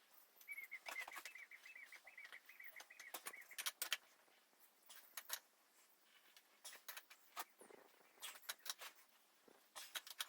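Scattered light clicks and taps of spanners on a reusable hydraulic hose fitting as it is tightened. A high warbling trill runs for about three seconds near the start.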